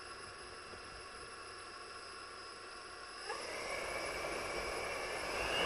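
The Jetson Speeder's eight brushless electric motors and propellers turning slowly, giving a faint steady whine of several tones. About three seconds in the motors spool up with a quick rising whine and the sound gets louder, building further near the end as the craft throttles up toward lift-off.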